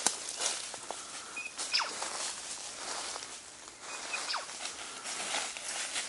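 Footsteps crunching and rustling through dry fallen leaves, in irregular strokes, with a few short high chirps.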